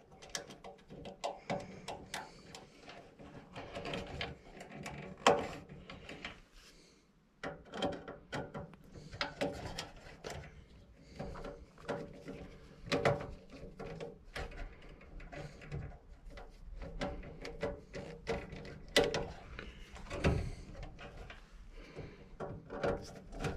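Small irregular clicks, scrapes and taps of a screwdriver and wire working at a furnace control board's terminal screw, as a thermostat common wire is fastened.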